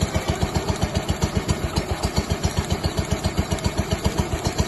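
A small engine running steadily with an even, rapid beat of about eight or nine strokes a second.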